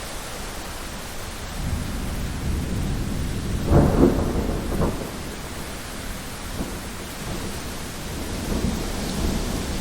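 Thunder rumbling over steady rain. The rumble builds about a second and a half in and peaks in a loud peal about four seconds in, with a second, shorter one just after, then rolls on more softly.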